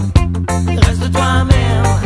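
Background reggae-style song with a steady bass line, a drum beat of about three hits a second, and a singing voice.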